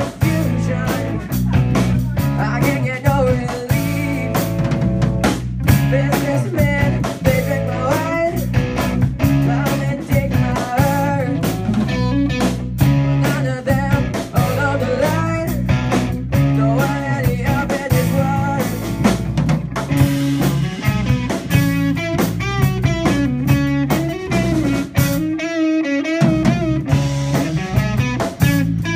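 Live rock band of electric guitar, bass guitar and drum kit playing. The electric guitar plays a lead line with bent, wavering notes over a steady bass and drum groove, and the bass and drums drop out for a moment near the end.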